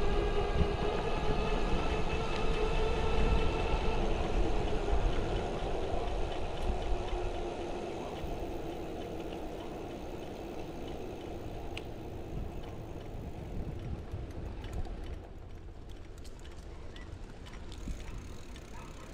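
A motor vehicle running with a steady engine drone and low rumble, fading into the distance during the first half.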